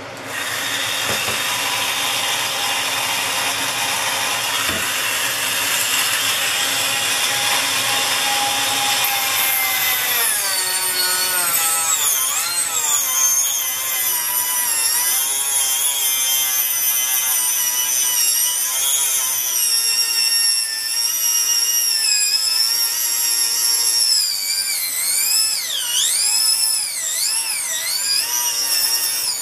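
Dremel rotary tool spinning up and cutting through a cured carbon fibre composite tube. It starts with a steady high whine. After about ten seconds the pitch keeps dipping and wavering as the bit bites into the carbon.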